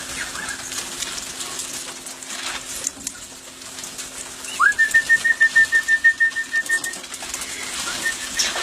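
A bird's alarm call: a sharp rising whistle about halfway through, then a rapid, even string of short high notes at one pitch, about six a second, fading and returning near the end. It is taken as a warning of a wedge-tailed eagle overhead.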